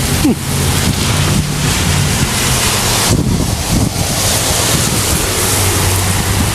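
Strong gusty storm wind blowing and buffeting the microphone, a steady loud rush with low rumbling gusts. The rush briefly thins about three seconds in.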